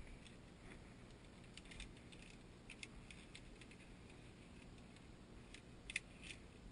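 Faint metallic clicks of via ferrata carabiners sliding and knocking along a steel safety cable, with a sharper cluster of two or three clacks near the end as they are handled at a cable anchor.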